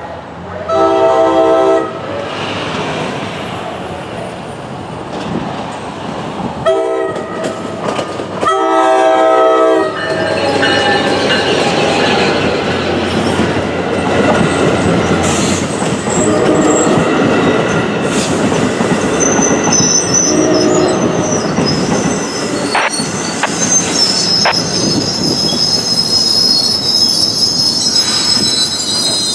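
NJ Transit commuter train sounding its horn three times, a long blast, a short one and a longer one, then running through the station with a steady rolling rumble. From about two-thirds of the way in, high-pitched wheel squeal rises over the rumble.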